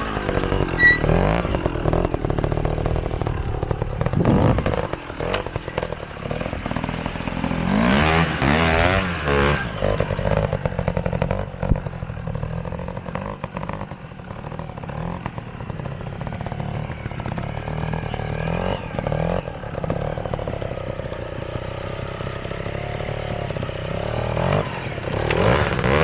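Trials motorcycle engine blipping and revving as the bike picks its way over rough ground, the revs rising and falling again and again, with the loudest bursts about eight seconds in and near the end. A few sharp knocks are heard in between.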